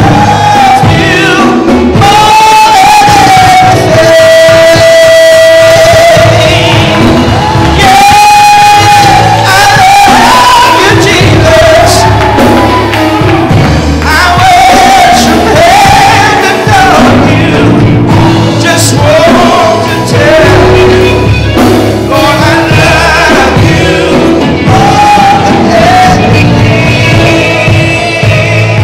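Live gospel worship music: a man singing a slow praise chorus into a microphone with long held notes, backed by keyboard and drums.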